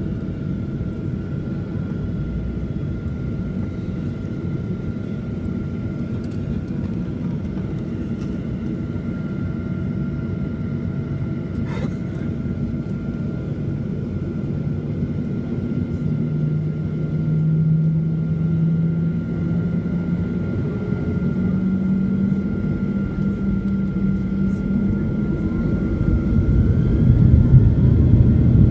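Boeing 737-800's CFM56-7B engines heard from inside the cabin while taxiing onto the runway: a steady low rumble with a thin steady whine over it. Partway through, the engine tone rises in steps, and near the end it grows louder as thrust comes up for takeoff.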